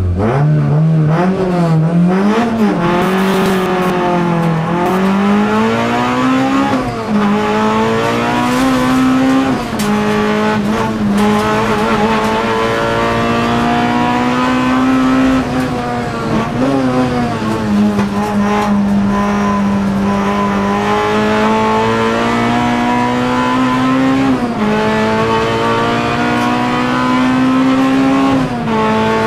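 Toyota Corolla T-Sport's engine heard from inside the cabin while it is driven hard. The engine pitch climbs steadily and drops at each gear change or lift for a corner, several times over, with steadier stretches between.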